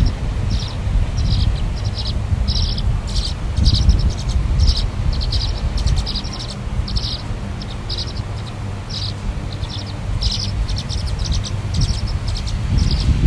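A bird calling over and over, short high chattering calls about twice a second, over a steady low rumble.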